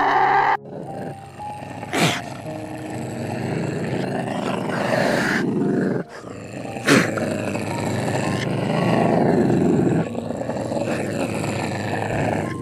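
A big cat's rough, rasping growls in long stretches, with two sharp sweeping strokes about 2 and 7 seconds in. It opens with the end of a donkey's bray.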